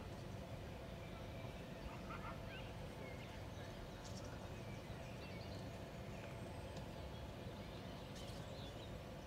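Faint, steady low background rumble, with a few brief, faint high calls and light clicks.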